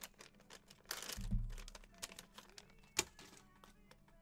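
Trading cards and plastic card holders handled on a table: light clicks and taps, a rustle with a low thud about a second in, and one sharp click at about three seconds, over faint background music.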